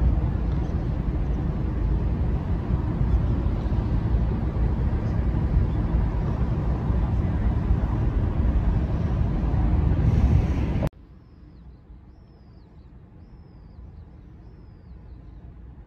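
Loud, steady rushing rumble, heaviest in the bass, that cuts off abruptly about eleven seconds in. A much quieter background follows, with a bird giving a run of short, falling chirps.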